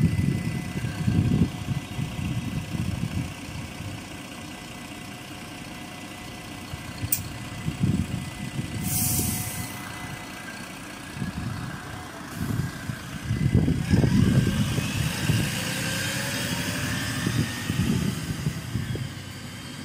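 Mercedes-Benz Citaro's OM 906 hLA six-cylinder turbodiesel idling at a stop, an uneven low rumble. About nine seconds in comes a short hiss of released compressed air.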